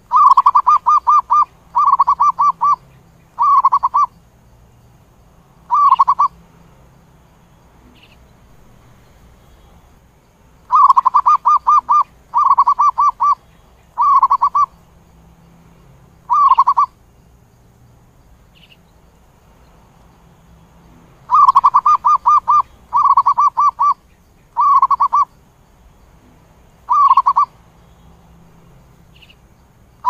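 Zebra dove calling: rapid runs of staccato coos in three bouts about ten and a half seconds apart. Each bout is one longer run followed by three shorter phrases. It is the flock call that draws other zebra doves.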